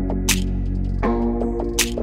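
Background music: sustained chords under a fast ticking beat, with a bright swishing hit twice and a chord change about a second in.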